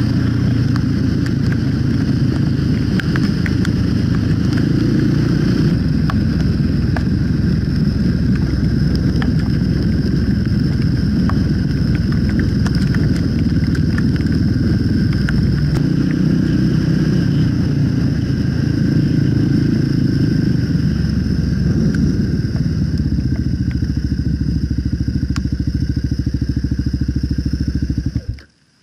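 A 2008 Kawasaki KLR 650's single-cylinder four-stroke engine running under way on a dirt road. Its note shifts several times as the speed changes, under a steady hiss of wind. The sound cuts off abruptly near the end.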